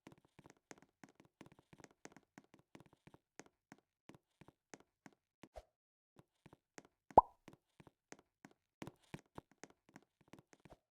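A single sharp plop about seven seconds in, loud and short with a quick falling ring, over a scatter of faint irregular clicks and ticks.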